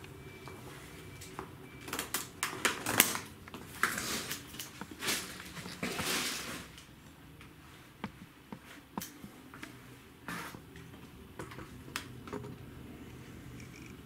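A knife cutting the plastic packing strap and shrink-wrap on a washing machine's cardboard box. A burst of sharp clicks, scrapes and crinkling plastic comes a couple of seconds in, then a few scattered light clicks.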